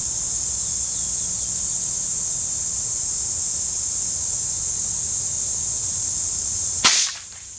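Steady high-pitched insect chirring, then near the end a single sharp shot from a Ruger 10/22 semi-automatic .22 LR rifle.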